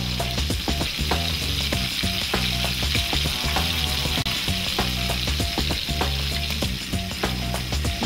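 Catfish fillets frying in olive oil in a pan: a steady sizzle with scattered crackles, over a low droning hum.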